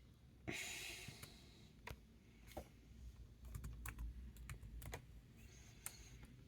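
Faint, scattered clicks of computer keyboard keys being pressed, a handful of separate keystrokes at uneven intervals rather than steady typing.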